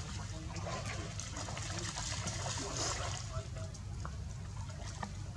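Water lapping and splashing as a monkey swims through a pool with a baby clinging to its back, over a steady low rumble.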